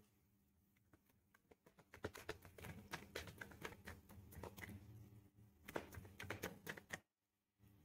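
Faint, quick papery clicks and flutters of a deck of oracle cards being shuffled by hand. They start about a second and a half in and stop shortly before the end.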